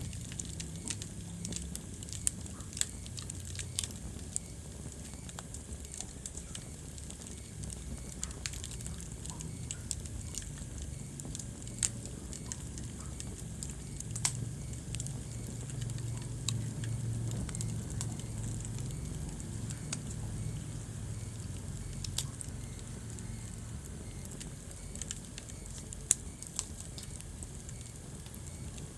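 Wood fire crackling in a fireplace: a steady low rumble of flames under scattered small crackles, with a few louder sharp pops, about half a dozen through the stretch.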